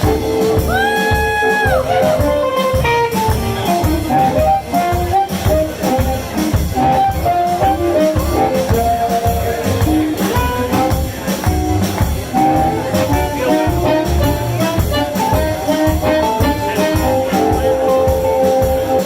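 Live blues band playing, with a lead instrument soloing in a run of short melodic notes over a steady drum beat.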